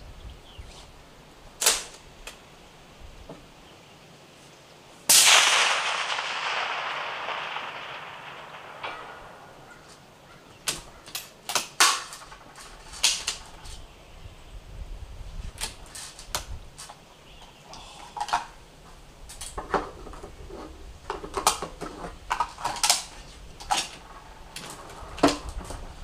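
A single suppressed shot from a Steyr SSG 08 A1 .308 Winchester bolt-action rifle fitted with an Otter Creek Labs Hydrogen suppressor, about five seconds in. Its report echoes and fades over about four seconds. A scattering of short, sharp clicks and knocks comes before it and after it.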